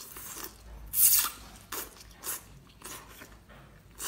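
Close-up eating sounds: a series of short wet bites and slurps as pale strands are pulled with the lips from a bundle of fibrous green stalks, the loudest about a second in.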